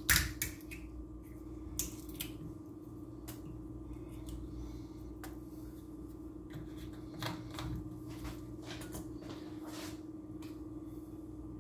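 A fork prying and scraping at the stuck cap of a honey bottle: a run of irregular small clicks and scrapes, with a few sharper knocks right at the start and again about two thirds of the way in, over a steady low hum.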